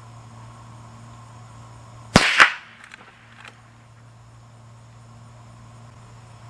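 A single shot from a Henry lever-action .22 LR rifle firing a CCI Mini Mag round: one sharp crack about two seconds in, with a second burst of sound a quarter second later as the report trails off. A couple of faint clicks follow about a second later.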